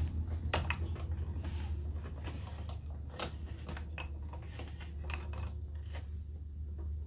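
Table saw blade height being adjusted by hand, the blade not spinning: scattered irregular clicks and knocks of the elevation mechanism and of the block against the sled, over a steady low hum.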